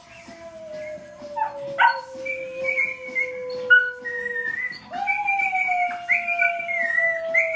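A puppy howling in long drawn-out notes, each slowly falling in pitch, the second starting about five seconds in, over background music.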